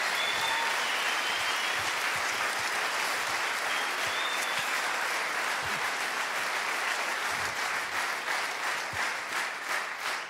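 Large theatre audience applauding, a dense, steady clatter of clapping that thins into scattered claps near the end.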